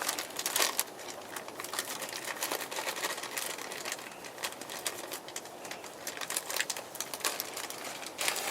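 Irregular small clicks, taps and rustles of camp cooking gear being handled, many quick sharp sounds scattered throughout.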